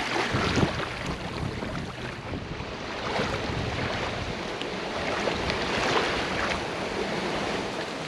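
Choppy lake water lapping and splashing around an open canoe's hull, with occasional irregular splashes. Wind buffets the microphone throughout.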